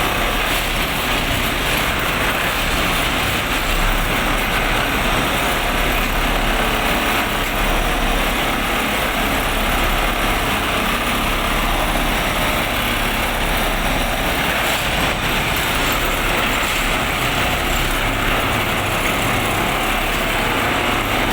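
An industrial machine running steadily: a loud, even mechanical noise with a low hum underneath.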